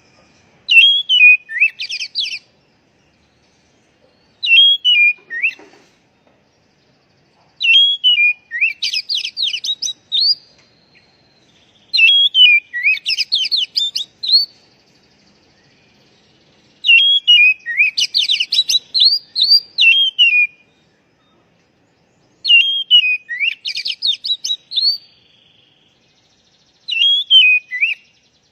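Oriental magpie-robin (kacer) singing: about seven short song phrases, each a quick run of whistled notes sliding up and down, with pauses of a couple of seconds between them.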